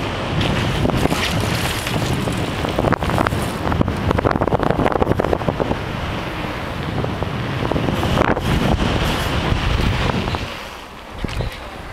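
Wind buffeting the microphone of a moving helmet camera, with scattered knocks and rattles. It drops away briefly about ten and a half seconds in.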